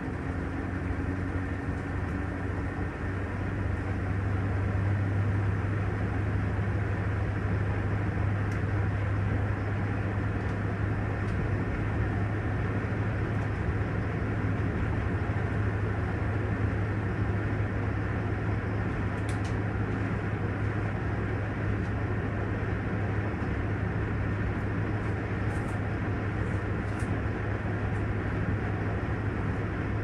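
Panasonic top-loading washing machine's tub spinning at speed in its spin cycle: a steady low motor hum with the rush of the turning tub, growing louder about three to four seconds in and then holding steady, with a few faint clicks later on.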